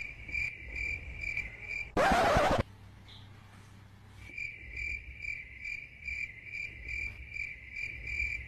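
A cricket chirps steadily, about twice a second. About two seconds in, a short, loud rushing noise cuts in; the chirping stops, then resumes about four seconds in.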